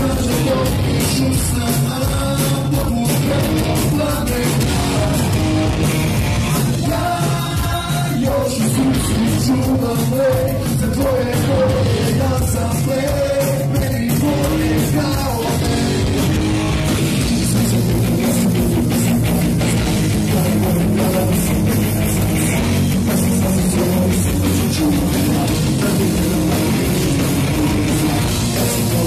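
Live rock band playing loud: electric guitar and drum kit under a vocalist singing into a microphone.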